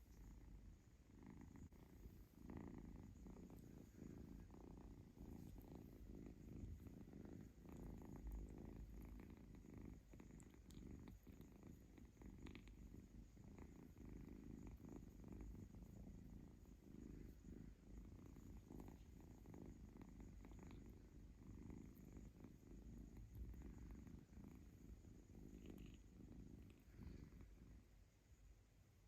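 Kitten purring close to the microphone, a steady low rumble that pulses with its breathing and fades away near the end.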